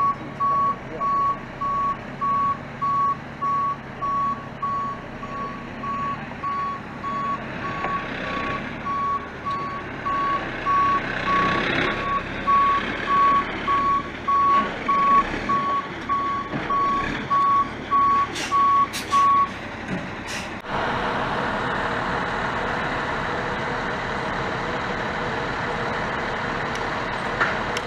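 Crane truck's backup alarm beeping at an even pace, about one and a half beeps a second, over its diesel engine as it reverses. The beeping stops about 20 seconds in, leaving the truck's engine running steadily and somewhat louder.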